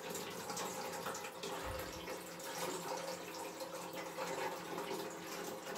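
Dudley Tri-Shell high-level cistern refilling after a flush: a steady hiss of water running in through the inlet valve.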